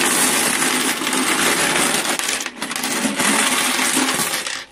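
A big hoard of UK coins, pound coins among them, pouring out of a cardboard money tin onto a wooden desk: a loud, continuous jangling cascade of metal coins. There is a brief lull about halfway through, and it stops abruptly at the end.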